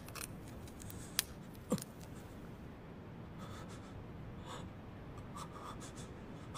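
Faint scratching and picking at brittle honeycomb (dalgona) sugar candy in a metal tin, with a few sharp snaps as pieces break off in the first two seconds and light crackles after.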